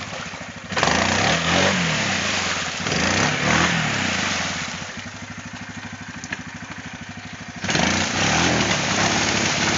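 Yamaha Kodiak 450 ATV's single-cylinder four-stroke engine revving in repeated surges, pitch rising and falling, as the quad sits stuck in thick, sticky mud with its wheels churning mud and water. It settles to a lower run in the middle and revs hard again near the end.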